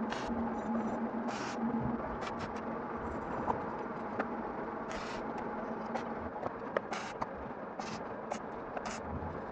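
MIG welder arc crackling steadily, with frequent sharp clicks, as a washer and nut are welded onto a seized pipe plug in a turbo exhaust manifold so the plug can be wrenched out. A low hum runs under it for the first two seconds, then stops.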